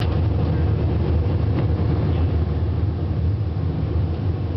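Airliner cabin noise in flight: a steady low rumble of the turbofan engines and rushing air, heard from inside the cabin.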